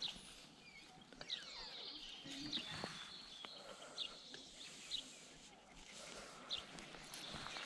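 Quiet outdoor ambience with a few short, high bird chirps now and then and faint rustling.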